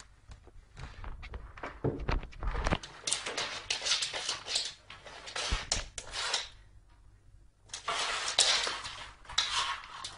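Cardboard box scraping and rustling as a cat pushes its head into it and shoves it across a wooden floor, in two spells of scratchy noise with a short pause between.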